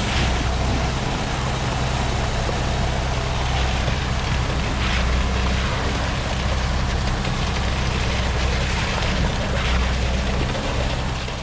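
Heavy truck diesel engine running steadily, with a broad mechanical hiss over it.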